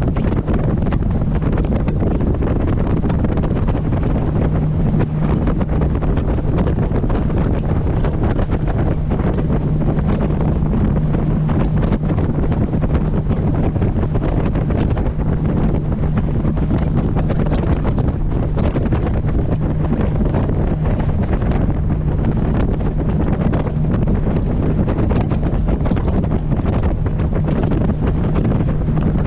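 Wind buffeting the microphone over the steady drone of a moving boat's engine, with water rushing along the hull.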